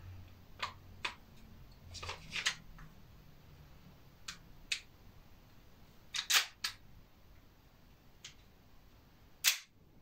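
Sharp metallic clicks and clacks of an Armorer Works custom airsoft pistol being handled with its green gas magazine. There are about a dozen separate clicks, the loudest a cluster about six seconds in and one near the end.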